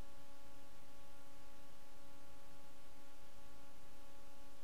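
Steady hiss with a faint constant hum made of several evenly spaced tones; no speech.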